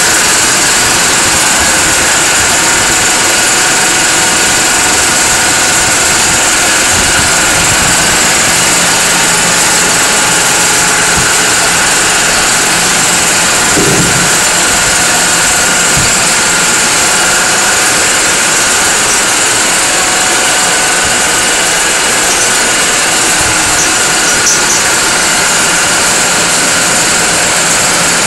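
High-pressure breathing-air compressor for filling dive tanks, running steadily with a loud, even machine noise.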